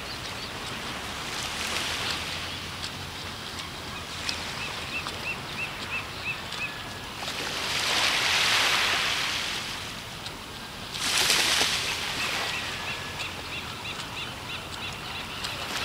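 Small waves washing onto a sandy beach, swelling in twice, with a bird chirping in quick runs of short, evenly repeated high notes.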